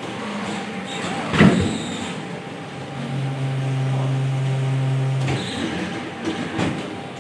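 Valkyrie humanoid robot stepping on a plywood platform. A foot thuds down about a second and a half in, a steady motor hum sounds for about two seconds midway, and two lighter knocks come near the end, over a faint constant machine hum.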